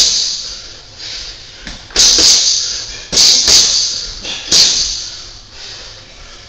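Boxing gloves smacking into focus mitts during pad work. There is a loud smack at the very start, another about two seconds in, a quick pair just after three seconds and one more about four and a half seconds in, each echoing briefly.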